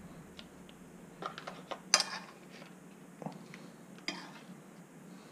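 A metal spoon clinking and scraping on a ceramic plate and against crisp fried corn taco shells as cubes of fish are spooned into them: a few light clicks in the middle, the sharpest about two seconds in.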